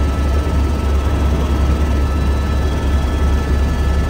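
Helicopter turbine engine and rotor running in flight, heard inside the cabin: a steady deep drone with a few faint high whining tones over it.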